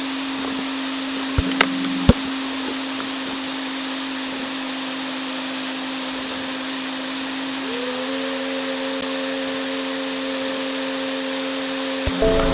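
Steady hum with an even hiss inside a car, with two sharp clicks about a second and a half and two seconds in; a second, higher hum joins near the end.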